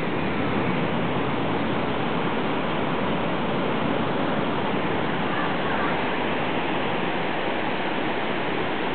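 Steady, even rush of ocean surf breaking along a sandy beach.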